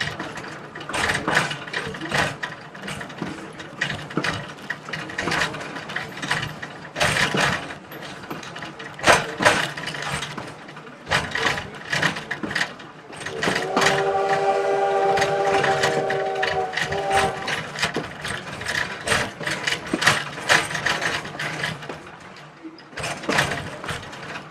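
A moving train's running gear clatters and knocks steadily over the track. About halfway through, the locomotive's whistle sounds one long blast of several notes together, lasting about four seconds.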